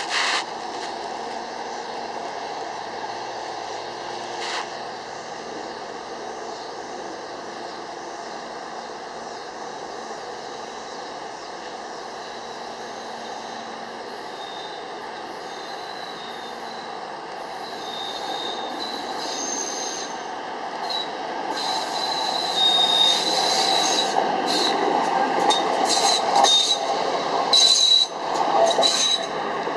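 Hi-rail pickup truck rolling along the railway track as it approaches, its steel rail wheels giving high, intermittent squeals on the rails. The sound grows louder over roughly the last ten seconds, above a steady background hum.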